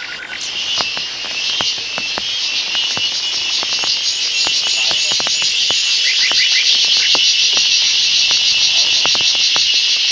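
A loud chorus of forest insects: a steady, high-pitched buzzing trill that swells over the first couple of seconds and then holds, with scattered sharp clicks and a few quick chirps about six seconds in.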